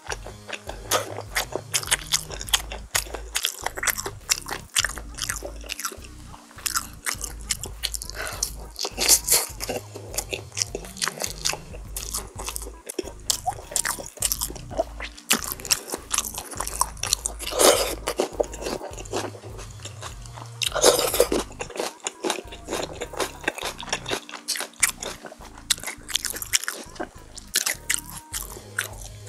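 Close-miked biting and chewing of crispy chili-pepper oven-roasted chicken: a steady run of crackling crunches, with a few louder crunches standing out.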